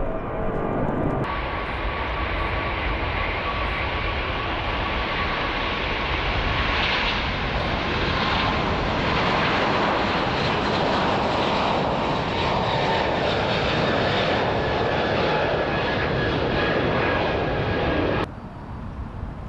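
Four Engine Alliance GP7200 turbofans of a Korean Air Airbus A380 at takeoff thrust as it climbs out: a loud, steady rush of jet engine noise with a faint whine in it. It drops off abruptly near the end.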